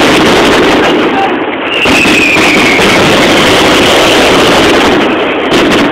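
Mascletà: a dense, continuous barrage of firecracker explosions, the blasts so close together that they run into a loud, steady roar, easing briefly twice.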